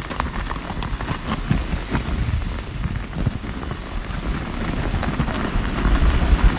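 Wind buffeting the phone's microphone as a steady low rumble, with scattered short clicks and rustles of handling and snow throughout.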